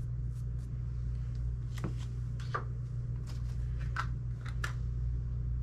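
Light, scattered clicks and taps of AR-15 parts being handled while the barrel nut is fitted to the upper receiver, over a steady low hum.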